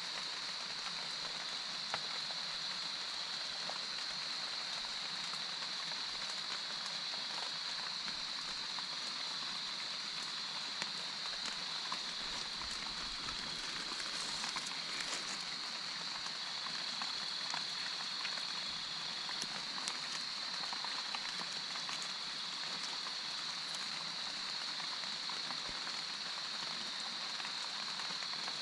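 Steady night-time insect chorus: a constant high, even drone over a soft hiss, with a few faint scattered ticks.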